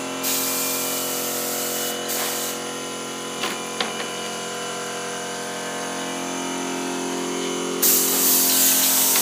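Air spray gun hissing in two long bursts, one just after the start and one near the end, while an air compressor hums steadily underneath. Two light knocks come in between.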